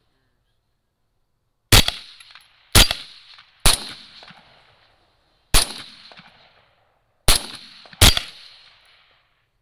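Six rifle shots, the first about two seconds in and the rest spread over the next six seconds, each a sharp crack followed by a fading echo.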